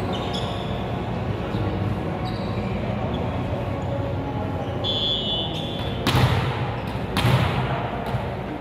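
Volleyball struck hard twice, about a second apart, during a rally, each hit echoing through the gym hall. Short high sneaker squeaks on the court come just before the hits.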